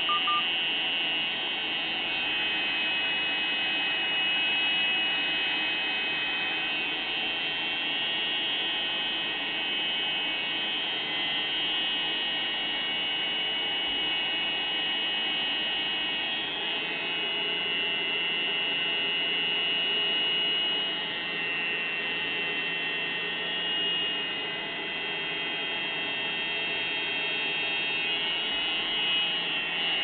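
Eberspächer Hydronic D5WZ diesel water heater running on the bench: a steady high-pitched whine over an even rushing noise, with a low hum joining a little past halfway.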